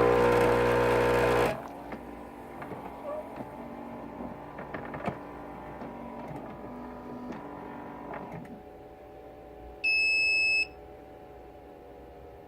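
Dong Gu DSK-F04-FA espresso machine's pump buzzing loudly, then cutting off sharply about a second and a half in. Faint scattered ticks follow, and about ten seconds in comes one high electronic beep lasting under a second.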